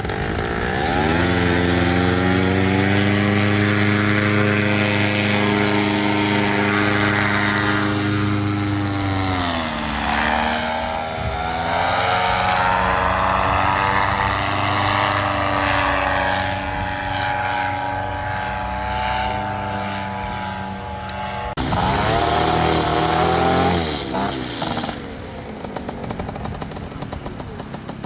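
Paramotor's engine and propeller throttling up about a second in and running at high power, easing back around ten seconds in, then dropping to a lower idle near the end.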